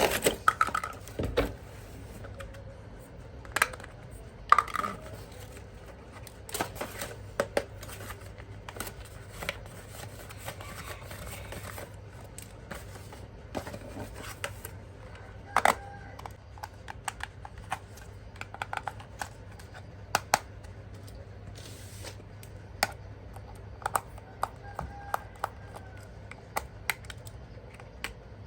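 Hands handling toy packaging and plastic parts: irregular clicks, taps and rustles, with a faint steady hum under them.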